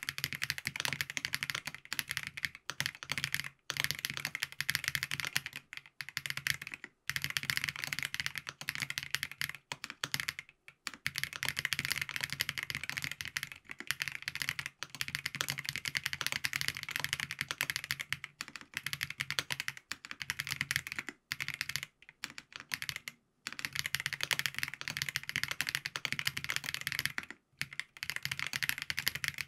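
Steady fast typing on a FancyTech Origin 65A mechanical keyboard fitted with Krytox-lubed Geon Black switches, a POM plate with Poron gasket, foam dampening and ABS keycaps. The keystrokes come as a dense patter, broken by brief pauses every few seconds.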